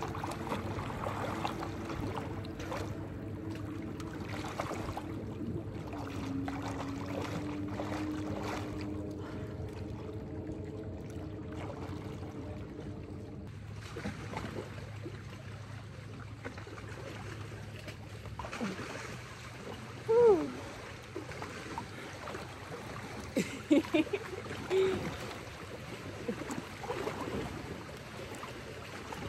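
Lake water lapping and splashing around a swimmer close to the microphone. A steady low engine-like hum runs under it and cuts off about halfway through. A few louder short sliding sounds come near the end.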